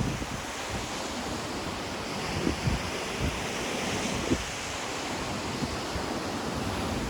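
Ocean surf washing steadily on the shore, with a few short low thumps of wind buffeting the microphone near the middle.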